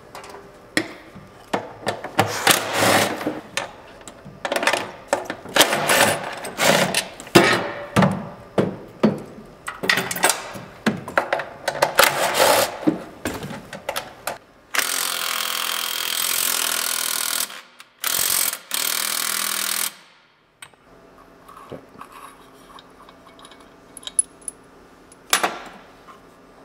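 Metal tools and parts clanking and knocking irregularly as the clutch guard comes off. Then a power driver runs steadily for about five seconds, with a short break, taking out the clutch cover screws. Near the end there is one sharp click.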